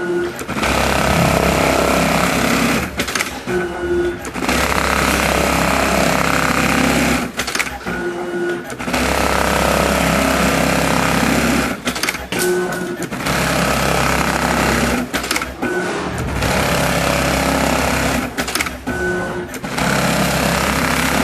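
Shoe sewing machine stitching leather, running in stretches of three to four seconds with short stops between them.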